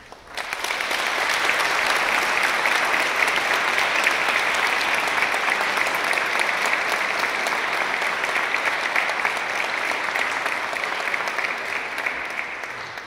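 Congregation applauding, starting sharply about half a second in and keeping up steadily before easing off near the end.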